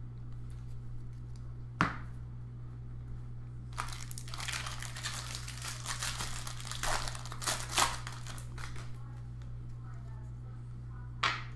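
Bowman Draft Hobby Jumbo card pack wrapper being torn open and crinkled, a dense crackling from about four to eight seconds in, with a sharp click near the start and another near the end.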